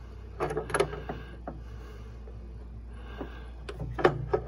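Adjustable wrench clicking and clinking against a small nut and its bracket on a riding mower's deck engagement cable as the nut is worked loose. A few sharp metal clicks come about half a second to a second and a half in, and a quicker run of them near the end.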